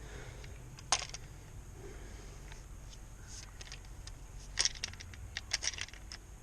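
Sharp clicks and light clinks of hard parts being handled: a single click about a second in, then a quick run of clicks and knocks near the end, as the two pieces of a pressure washer wand are taken out and handled.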